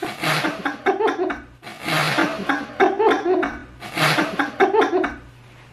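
A man laughing hard in three long bursts, dying down about five seconds in.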